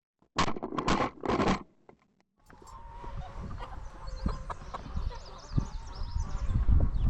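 Domestic chickens clucking and calling, opening with three loud harsh bursts in the first second and a half, then a steadier mix of clucks and high chirps over a low rumble.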